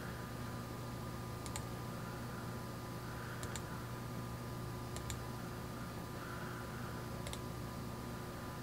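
A few faint computer mouse clicks, about one every two seconds, over a steady low electrical hum.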